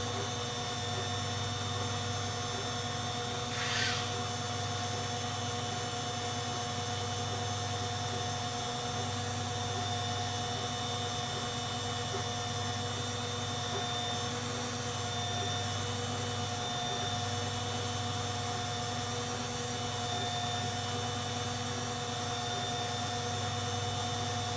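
Servis Quartz MK601 washing machine running with a steady motor hum and a fixed whine, its low drone swelling and easing slowly, with a brief hiss about four seconds in.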